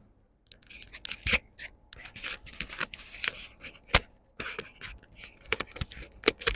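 Close rustling and scraping handling noises in short irregular bursts, with sharp clicks, the loudest about four seconds in.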